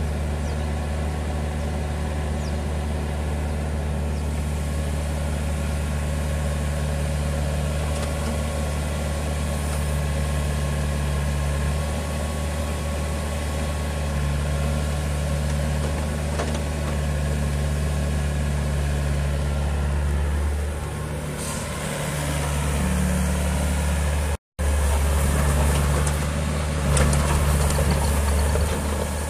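Neuson 6003 RD mini-excavator's diesel engine running steadily while the boom and bucket are worked. The sound drops out for an instant about three-quarters of the way through, then carries on louder.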